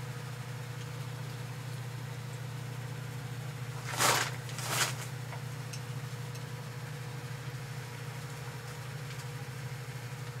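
A steady low mechanical hum, with two short hissing, rustling bursts about four and five seconds in, the second a little after the first.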